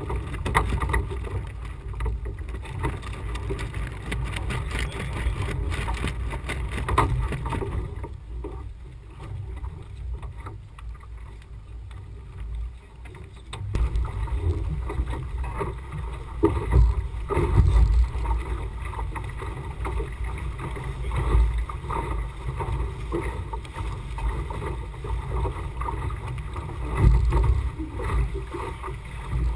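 Wind buffeting a camera microphone mounted on the deck of a Laser 2000 sailing dinghy: an uneven low rumble that comes and goes in gusts, loudest about two-thirds of the way through and again near the end, with scattered knocks and rustling from the boat.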